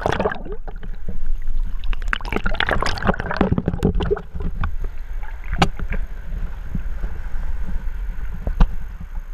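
Water sloshing and gurgling against the camera as it breaks the sea surface, busiest in the first few seconds, then muffled underwater noise: a steady low rumble with scattered sharp clicks and crackles.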